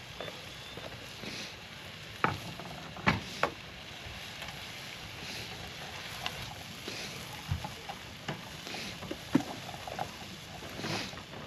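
Scattered clicks and knocks of things being handled, irregular and uneven in strength, over a steady background hiss.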